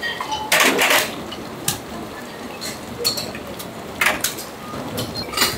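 Dishes, pots and utensils clattering: a run of sharp knocks and clinks, the loudest about half a second to a second in and again about four seconds in.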